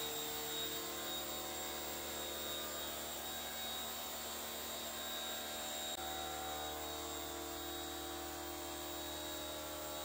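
Pressure-washer motor running steadily, a hum with several constant whining tones, while a ceiling-cassette air conditioner is rinsed under a plastic washing cover.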